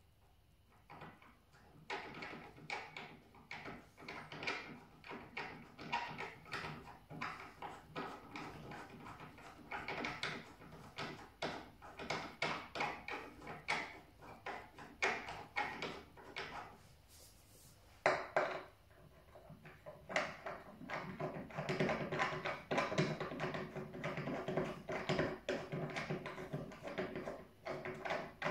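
3D-printed plastic feet being screwed by hand onto threaded bolts under a dartboard machine cabinet: rapid, irregular clicking and scraping of the threads. There is a lull partway through with a single sharp knock, then denser scraping near the end as the second foot goes on.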